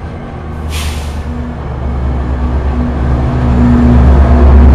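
A Metra diesel-powered commuter train passing close by: bilevel coaches roll past, then the diesel locomotive comes alongside, its engine drone growing steadily louder. A short, sharp hiss of air about a second in.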